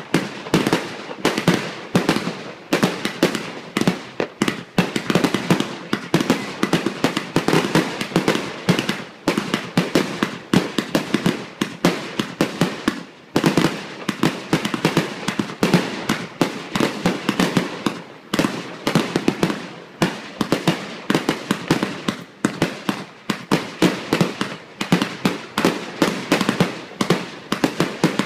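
Fireworks finale: aerial bursts going off in a rapid, unbroken barrage, several sharp bangs a second overlapping one another.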